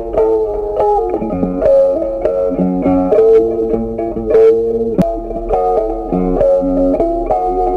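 Background music: a plucked guitar tune with a steady beat.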